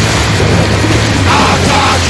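Loud, dense music with a steady low bass note and a pattern repeating about every second and a half.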